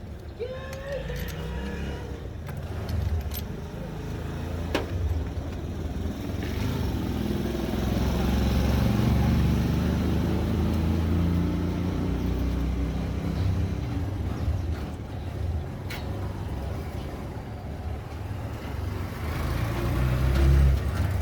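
A motor vehicle's engine running close by, swelling to its loudest about midway and then easing off, with a few short sharp clicks.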